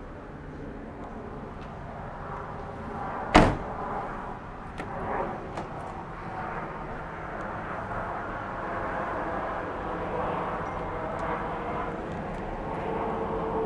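A car door slammed shut once, a single sharp thud about three seconds in. A few lighter clicks and knocks follow, over a steady background hum.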